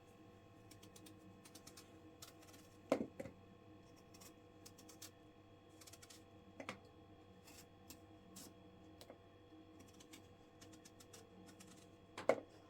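Sparse light clicks and taps, with three louder knocks about three, six and a half and twelve seconds in, over a faint steady hum.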